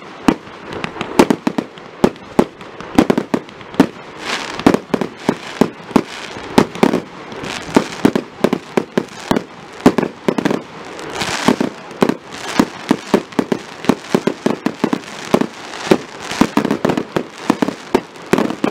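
Fireworks display: aerial shells going off in a rapid, continuous barrage of sharp bangs, several a second, with stretches of crackling from the glittering bursts.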